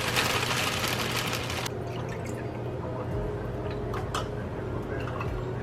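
Ingredients being poured into a mixing bowl, a rushing pour for the first couple of seconds, then quieter handling with a few light clicks.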